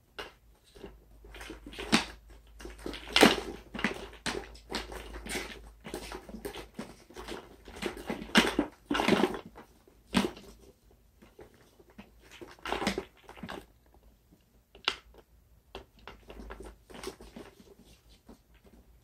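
Wooden tiger marionette being walked on strings, its jointed carved legs and feet knocking and clattering irregularly on a wooden floor. A few louder, longer noises come about three seconds in and again around eight to ten seconds in.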